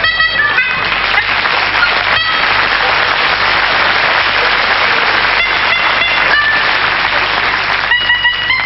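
Audience applauding, with a few squeaky bulb-horn notes at the start and again near the end.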